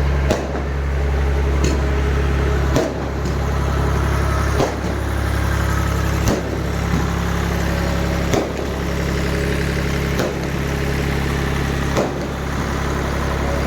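Steady low motor hum, with a short click about every two seconds where the hum changes slightly.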